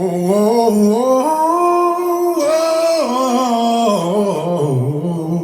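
Recorded male rock vocal, unaccompanied, singing a long, wavering 'whoa' that slides up and down in pitch. It is played loud through a speaker test box driven by a 1001U mono car amplifier with H1 soldered to sum the left and right channels.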